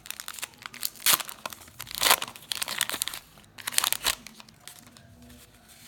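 Trading-card pack wrapper crinkling and tearing as it is ripped open by hand, in three main sharp bursts, then quieter from about four and a half seconds in.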